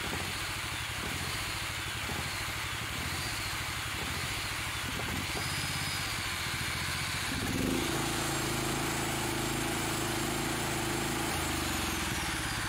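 Honda GX390 single-cylinder engine running with a belt-driven, 3D-printed supercharger on it, a little unevenly at first. A little past halfway it picks up slightly and settles into a steadier note. It is an old engine that has sat for years and is still in rough shape, with a carburettor that needs cleaning.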